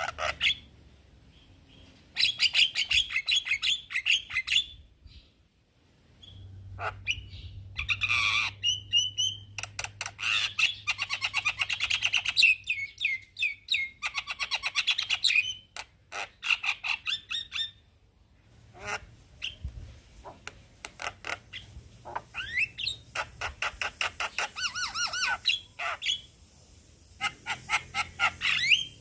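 Male Javan myna singing: bouts of rapid, harsh chattering notes a few seconds long, mixed with short rising whistles, broken by brief pauses.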